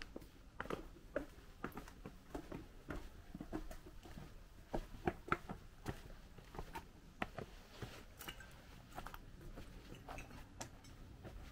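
Footsteps on an uneven footpath: irregular steps with small clicks and scuffs, about two to three a second.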